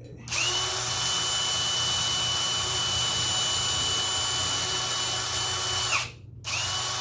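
Electric drill spinning at speed with a steady high whine, cleaning corrosion off a tractor battery terminal. It stops briefly about six seconds in and spins up again.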